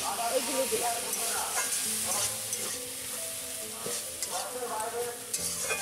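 Green chillies, ginger and whole cumin and mustard seeds sizzling in hot oil in a steel karai (wok). A metal spatula scrapes and clicks against the pan as it stirs them.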